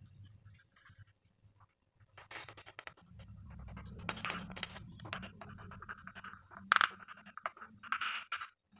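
Hand-handling noises from food preparation: scratching and rustling as shallots are picked from a plastic basket and worked by hand, and a plastic cutting board and knife set down on a tiled floor, with one sharp knock a little after the middle.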